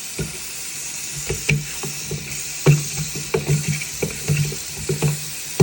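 Irregular knocks and clunks as a jammed garbage disposal is turned back and forth by hand with a hex wrench, working loose a jam that leaves the motor humming without spinning. A steady hiss runs underneath.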